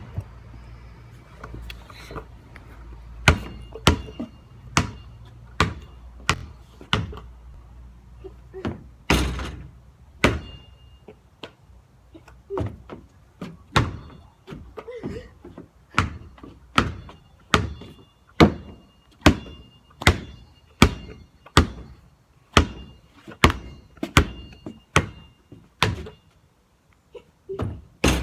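Basketball being dribbled on hard ground: a steady run of sharp bounces, a little more than one a second, with a short break a little before the middle.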